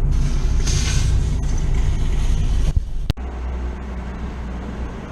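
Car engine and road rumble while driving. About three seconds in there is a sharp click, and the sound drops to a quieter, steady engine hum.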